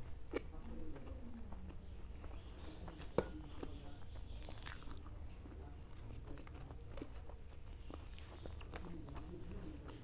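A person chewing a mouthful of makki ki roti (maize flatbread) and sarson ka saag, with many small wet mouth clicks and one sharper click about three seconds in.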